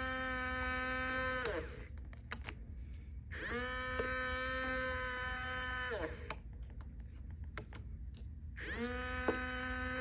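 Small electric motor switched through a latching reed switch, running with a steady hum, then winding down with falling pitch and spinning back up with rising pitch, three times over; it is off for about two seconds each time. Sharp clicks fall in the quiet gaps.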